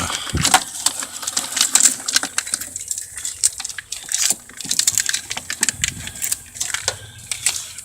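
Wiring harness being handled under the hood: a quick, irregular run of small plastic clicks, rattles and crackles from the wires and their loom.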